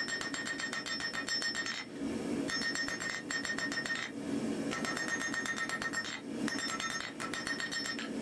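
Hand hammer striking hot steel on an anvil in rapid, even runs of blows, each blow ringing, with short pauses between the runs.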